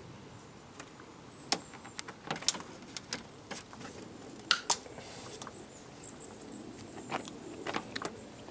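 Cutting pliers working through a thick power cable: about eight sharp clicks and snaps at uneven intervals, the loudest about one and a half, two and a half and four and a half seconds in.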